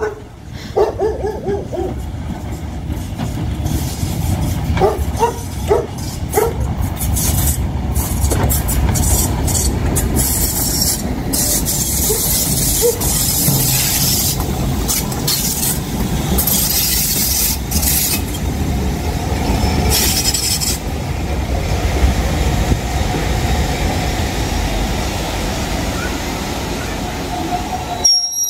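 LMS Black Five steam locomotive No. 45212 passing close, with a heavy rumble and loud bursts of hissing steam, then its coaches rolling by over the rails near the end.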